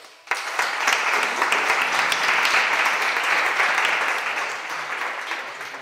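Audience applauding, breaking out sharply just after the start and dying away near the end.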